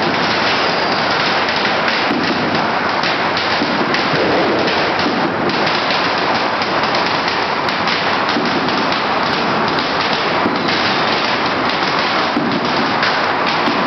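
Strings of firecrackers going off in a dense, unbroken crackle of rapid bangs.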